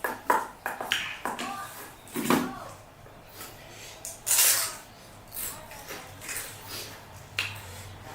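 A person eating pani puri close to the microphone: a series of short crunches and mouth noises, with one longer, louder burst about four seconds in.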